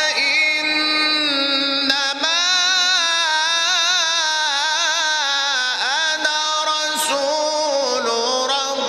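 A man's voice in melodic Quran recitation (mujawwad tajweed), holding long notes with wavering ornaments that rise and fall, broken by brief pauses for breath.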